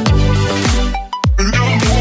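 Electronic background music with a steady beat, sustained bass notes and a falling bass drop on each beat.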